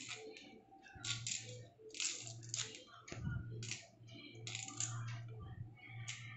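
Fresh Indian coral tree (kalyana murungai) leaves being plucked and snapped off their stems by hand: a string of short crisp rustles and snaps, about one a second, over a faint steady low hum.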